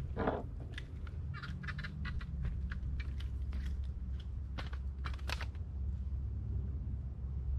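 A hooked mangrove snapper splashing at the water's surface, followed by a run of short clicks and knocks as the fish is swung aboard and handled, over a steady low hum.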